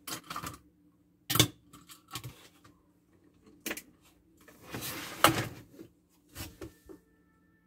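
Handling noise from a plastic solar camp-light charging unit and its LED bulb cables: a few sharp clicks and knocks, and a longer rustling scrape a little past halfway as the unit is gripped and moved.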